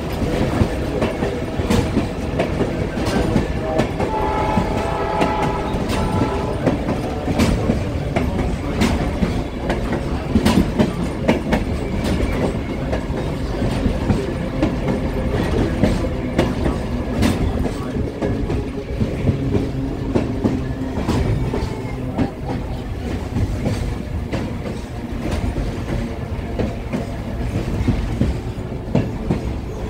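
Passenger train cars rolling along the track, heard from an open car: a steady rumble with wheels clicking and clacking over the rail joints. A train horn sounds for a few seconds about four seconds in.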